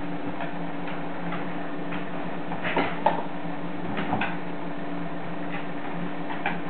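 Siberian huskies' claws clicking and scuffling on a wooden floor as two of them wrestle in play: scattered light ticks, a few stronger ones near the middle, over a steady low hum.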